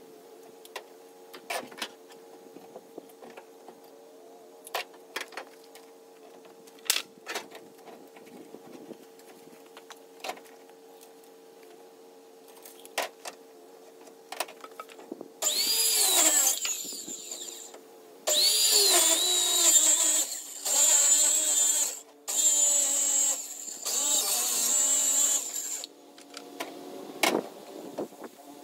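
Scattered knocks and clatter of lumber being handled, then about halfway in a circular saw starts and cuts a wooden board in four bursts of two to four seconds with short pauses between, its whine rising at each start and then dropping.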